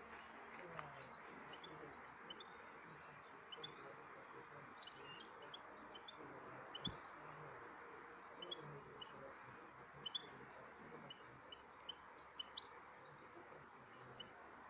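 Caged European goldfinch singing faintly: a loose run of short, high twittering notes over a steady background hiss.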